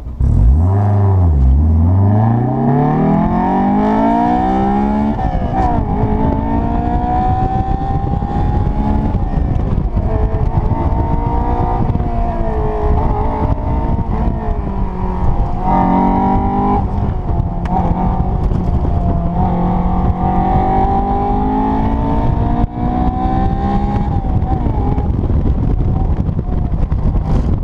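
Car engine heard from inside the cabin under hard track driving, its pitch climbing with revs and dropping back at each gear change or lift, over steady road and wind noise.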